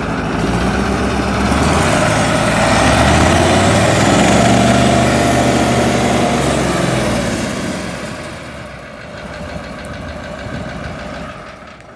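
1982 White 2-180 Series II tractor's Caterpillar 3208 V8 diesel engine running, revved up for a few seconds and then brought back down. The sound drops off after the rev and fades out near the end.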